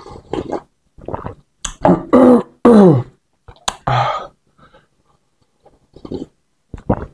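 A man sips bakso broth straight from a bowl in short slurps. About two seconds in come two loud, throaty vocal sounds that fall in pitch, like throat clearing after swallowing.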